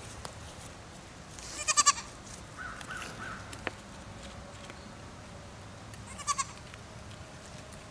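Goat bleating twice, two short wavering bleats about four and a half seconds apart, the first louder than the second.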